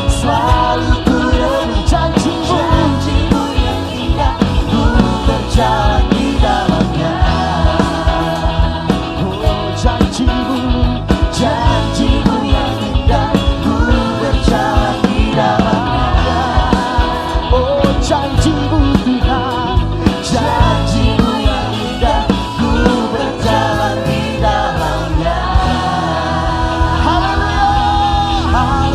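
Worship band playing a full-band arrangement with a steady drum beat, with voices singing over it.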